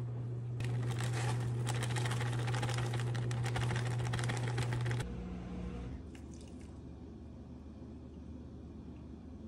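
Dark brown sugar being shaken from its bag into a glass bowl: a crackling, rustling patter of many small ticks lasting about four seconds over a steady low hum. It then stops, and the rest is much quieter while evaporated milk is poured from a can into the bowl.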